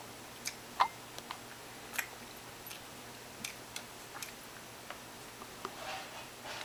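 Baby chewing idli: soft, irregular mouth clicks and smacks scattered about once a second, the loudest about a second in, with a brief rustle near the end.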